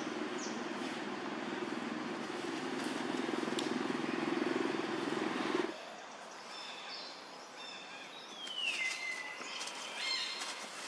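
A steady low rumbling noise that cuts off suddenly a little over halfway through. Then quieter outdoor ambience with a few high chirping calls, one sliding down in pitch, and scattered light clicks near the end.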